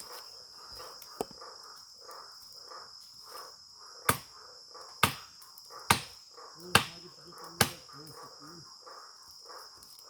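Night insect chorus: a steady high cricket trill with rapid rhythmic pulsing calls below it. About four seconds in, five sharp knocks come roughly a second apart, like wood being chopped.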